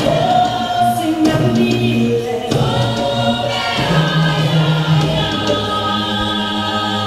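Choir singing in harmony, with several voices holding long notes and moving together from chord to chord.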